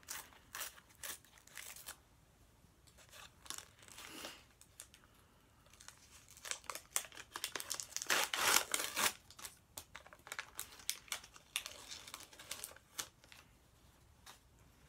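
A sticker packet's paper wrapper being torn open by hand and crumpled, a run of short crackling rips that is loudest about eight seconds in.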